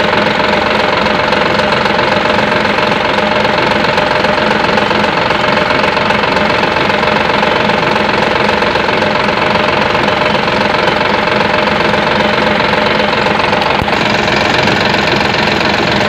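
Toyota 4-ton forklift engine idling steadily.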